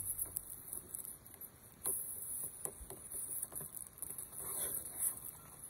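A spoon stirring thick mashed potatoes in a metal pot: soft, irregular clicks and scrapes of the spoon against the pan, over a faint high hiss.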